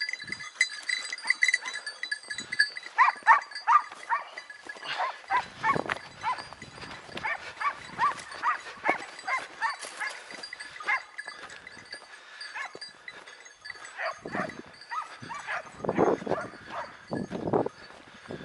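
Hunting hounds yelping and baying in quick repeated cries, typical of a pack giving tongue on a hare's trail, with faint bells ringing.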